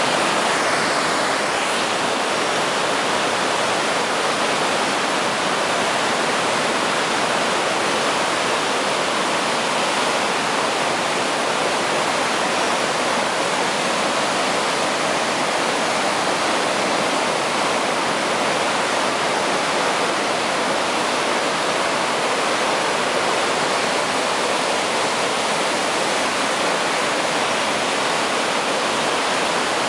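River in spate rushing through boulder-strewn whitewater rapids: a steady, unbroken rush of churning water.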